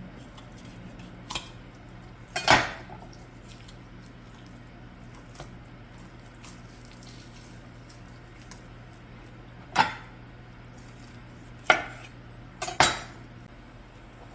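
Kitchenware clattering: about five sharp knocks of dishes or utensils against each other, the two loudest ringing briefly, over a steady low hum.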